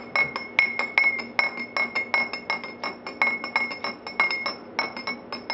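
A metal spoon stirring juice in a glass, clinking against its side about four times a second, each tap leaving a short high ring.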